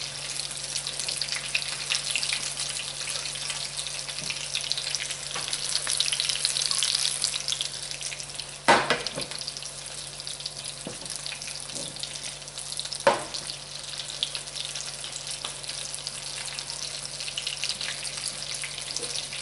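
Cheese-coated chicken pieces frying in olive oil in a pan: a steady sizzle and crackle. Two sharp knocks, about four seconds apart, come near the middle.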